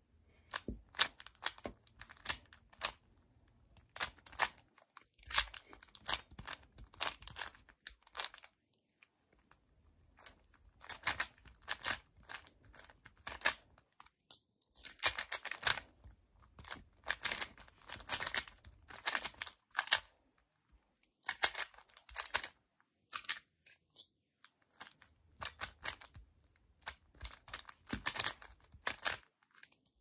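Plastic 3x3 Rubik's cube being turned fast by hand: bursts of rapid clicking and clacking as the layers snap round, broken by short pauses, the longest of about two seconds a third of the way through.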